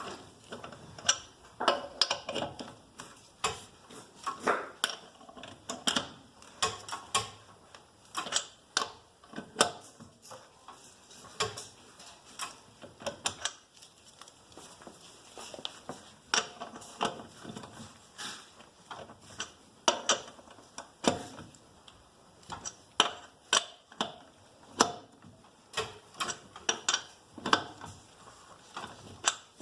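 Ratchet wrench clicking in repeated quick strokes as the wheel's lug nuts are tightened down, with pauses between runs of clicks.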